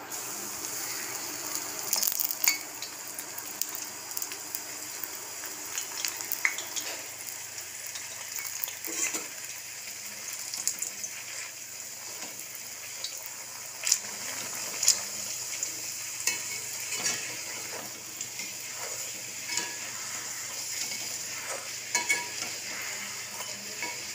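Poori dough deep-frying in hot oil: a steady sizzle full of small crackles and pops, which starts as a fresh round of dough goes into the oil. A few sharper clicks come from a perforated metal slotted spoon pressing and basting the poori in the pan.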